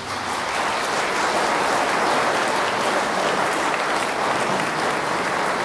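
Large audience applauding, the clapping building over the first second and then holding steady.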